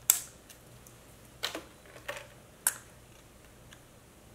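A few sharp plastic clicks and taps from a cosmetics jar's lid and its white inner seal disc being handled and lifted out. The first click is the loudest, then come three fainter ones over the next few seconds.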